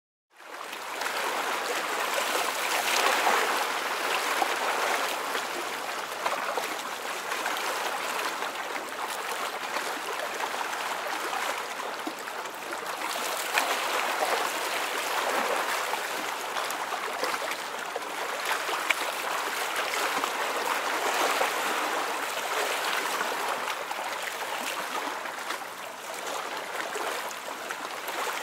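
Steady rushing noise of running water, rising and falling gently in level.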